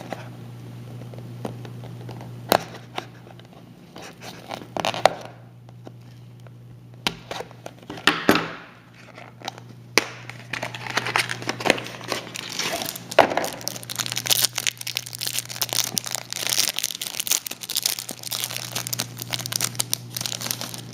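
A basketball trading card pack's wrapper being crinkled and torn open, with cards rustling and clicking as they are handled. Crackling bursts come sparse at first, then thick and continuous through the second half.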